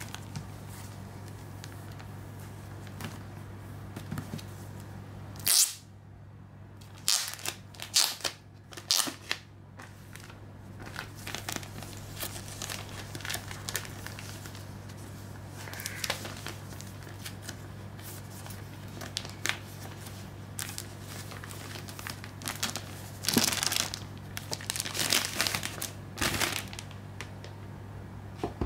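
Clear plastic shrink-wrap on a boxed disc set crinkling and rustling in short irregular bursts as it is handled, busiest about a quarter of the way in and again near the end. A steady low hum runs underneath.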